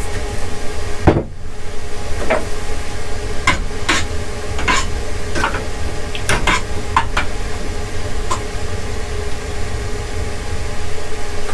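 Metal spoon clinking and tapping against a pot, about ten scattered sharp taps, over a steady low hum.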